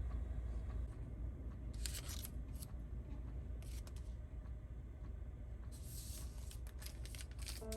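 Rustling and crinkling handling noises in short bursts, about two and four seconds in and again near the end, over a low steady rumble.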